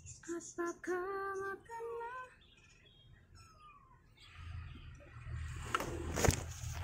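A few short pitched calls in the first two seconds, then a couple of thin falling squeaks, followed from about four seconds in by rustling and handling noise with two sharp knocks near the end.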